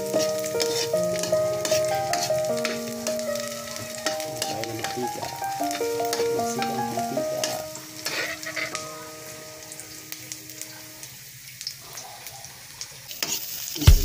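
Chopped garlic and onion sizzling in oil in a steel wok, stirred with a spatula that scrapes and ticks against the pan. A simple melody of held notes plays over it and stops about three seconds before the end, and loud drum beats come in right at the end.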